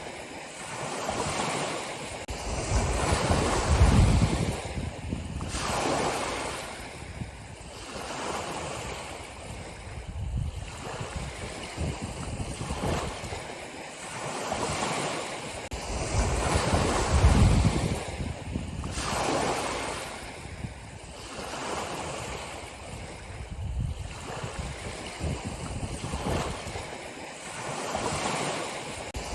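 Ocean waves breaking and washing on a shore, a continuous surf wash that swells and recedes every few seconds, with heavier breakers about four seconds in and again past the halfway mark.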